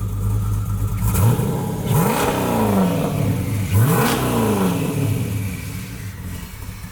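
Twin-turbo Jeep Grand Cherokee SRT's V8 idling, then revved twice, each rev rising sharply and falling back to idle.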